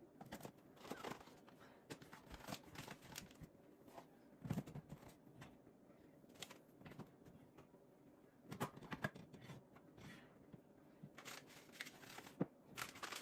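Scattered light clicks and knocks with some rustling as items are handled and set into the organizer's pull-down basket.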